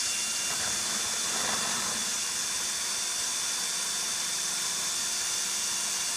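Power drill running steadily as it pre-drills a pilot hole into a 4x4 aluminum column, with a high steady whine.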